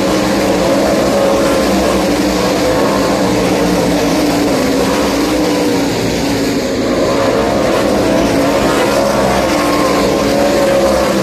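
A pack of World of Outlaws winged sprint cars racing on a dirt oval, their methanol-burning 410 cubic-inch V8 engines running flat out, with the pitch rising and falling through the turns. The sound eases slightly about six seconds in as the pack gets farther away, then swells again as the cars come back around.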